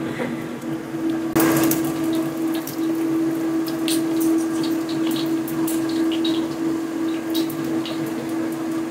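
Hot oil sizzling in a steel wok as pieces of fried sticky rice cake are scooped out onto a perforated skimmer, with scrapes and light clinks of the spatula against the metal. A steady low hum runs underneath.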